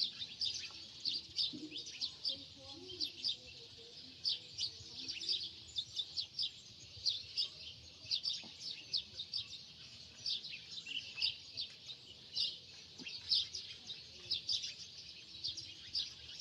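Many small birds chirping busily: a dense stream of short, high chirps, several a second, overlapping throughout.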